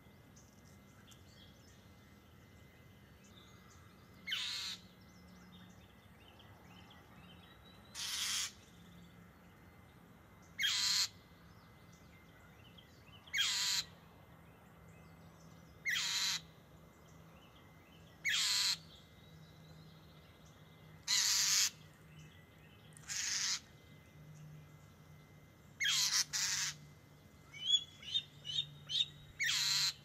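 Northern mockingbird scolding a bald eagle with harsh, loud calls about every two and a half seconds, about ten in all, a pair close together near the end. Near the end a quick series of short, high chirps, the eagle's alert calls at the harassing mockingbird.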